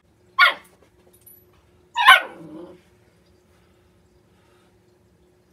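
A dog barks twice, two short, sharp barks about a second and a half apart; the second is longer and trails off lower.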